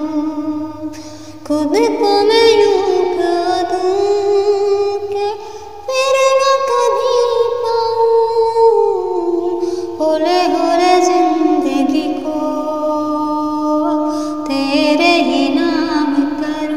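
A woman singing a Hindi song unaccompanied, holding long notes with ornamented turns in phrases separated by brief breaths.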